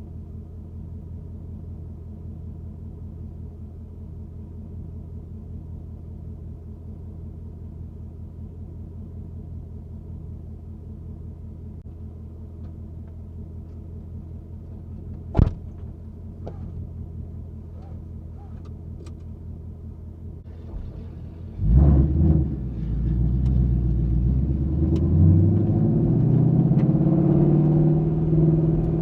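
Ford Mustang GT's 5.0 L V8 exhaust, heard from the trunk, idling steadily, with a single sharp knock about halfway through. About three quarters of the way in it pulls away hard and gets much louder, the revs rising and dropping through the gear changes.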